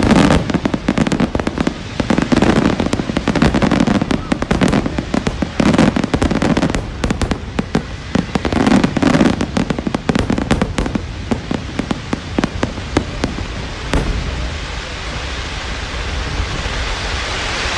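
Fireworks going off in quick succession: many sharp bangs and crackles with voices underneath. About fourteen seconds in the bangs thin out, leaving a steadier hiss.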